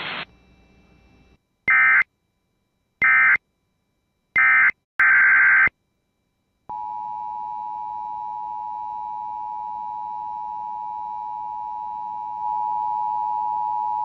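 Emergency Alert System alert tones: a hiss cuts off, then four short bursts of SAME data-header tones, followed by the steady two-tone EAS attention signal, which gets louder near the end.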